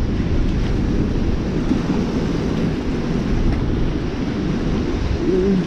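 Steady rush of floodwater pouring through a dam's open gates, with wind buffeting the microphone.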